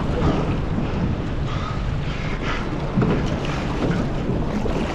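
Wind buffeting the microphone over waves slapping against a small boat's hull, with short splashes from a large hooked snapper thrashing at the surface beside the boat.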